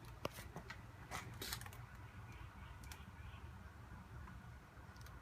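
Faint, scattered clicks and light knocks of a slip-on motorcycle muffler and its clamp being handled and pushed into place on the exhaust link pipe.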